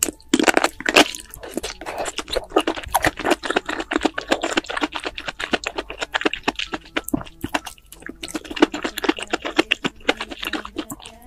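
A person chewing saucy brown beech mushrooms: a fast, steady run of wet crunching and smacking clicks, loudest in the first second.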